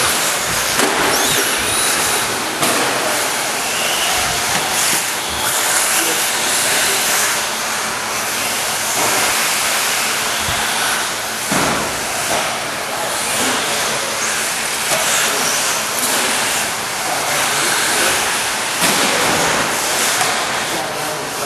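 Radio-controlled cars running on an indoor dirt track: a loud, steady wash of noise with faint motor whines that rise and fall.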